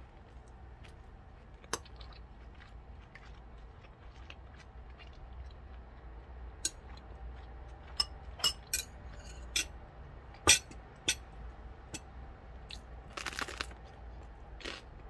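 Eating close to the microphone: chewing, with scattered sharp clinks of a metal spoon and chopsticks against a ceramic rice bowl and plate. The sharpest clink comes about two-thirds of the way through.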